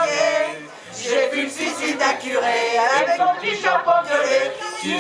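A small mixed group of men and women singing a song together into a microphone, with a brief pause a little under a second in.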